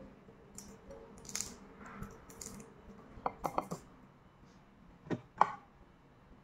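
Quiet eating and handling sounds of a balut meal: a quick run of small sharp clicks about three seconds in, then two louder clicks a little after five seconds.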